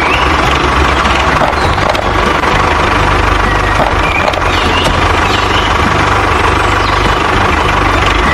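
A vehicle engine running steadily, with no change in pace.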